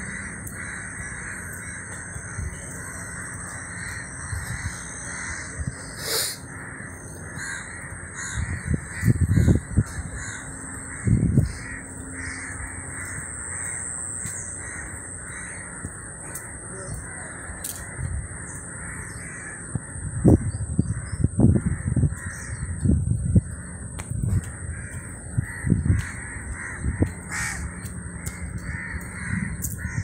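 Crows cawing against outdoor garden ambience, with a steady high-pitched whine throughout. Loud low rumbling bursts come about nine to eleven seconds in and repeatedly through the second half.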